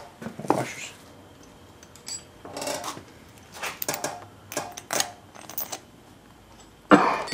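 Light metallic clinks and rattles of steel head bolts and washers being handled and set by hand into an aluminium cylinder head, in short separate bursts, with the loudest clatter near the end.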